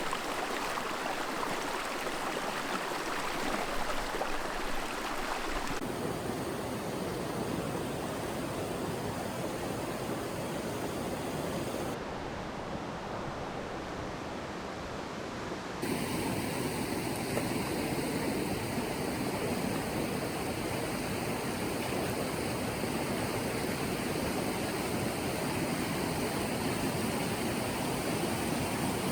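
Rushing river water: a steady, even rush whose tone shifts abruptly a few times, about 6, 12 and 16 seconds in.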